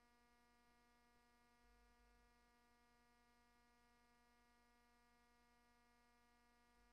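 Near silence, with a faint steady electrical hum.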